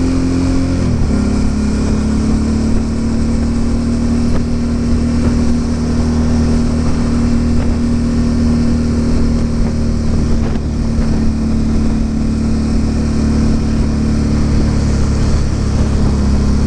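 Suzuki V-Strom DL650's 645 cc V-twin engine running steadily at cruising speed, its note dropping slightly about a second in and then holding, over low wind rumble on the microphone.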